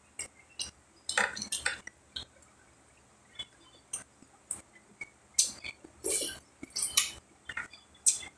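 Close-up eating sounds: scattered short clicks and wet smacks as seafood and a corn cob are handled and eaten with the fingers. There is a cluster of them about a second in and a longer noisy burst about six seconds in.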